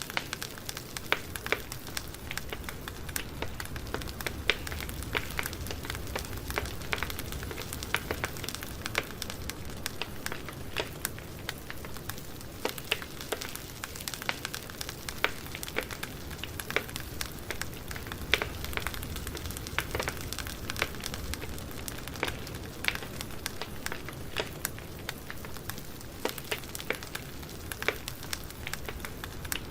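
Campfire burning: wood crackling with irregular sharp pops and snaps, several a second, over a low steady rumble of the flames.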